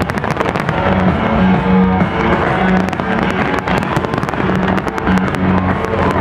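Aerial fireworks bursting and crackling in rapid, dense succession over loud music with held bass notes.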